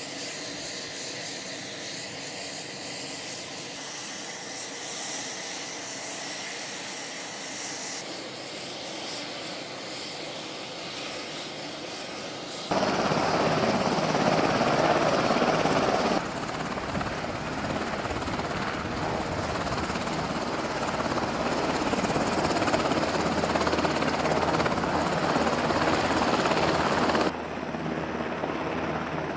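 UH-60L Black Hawk helicopters' twin-turbine engines and main rotors running, a steady helicopter noise. It is moderate at first, then abruptly much louder about 13 seconds in, where a Black Hawk on the ground has its rotors turning and another lifts off.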